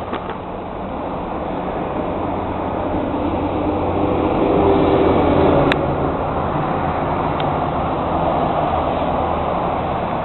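Steady rush of highway traffic on the Pennsylvania Turnpike: tyre noise and engine hum from a stream of cars and trucks. It swells to its loudest about halfway through, then eases a little.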